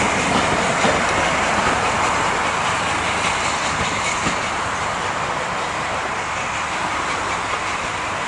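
Train running along the track: a steady rumble and rush of wheels on rail with a faint clickety-clack, growing a little quieter in the second half.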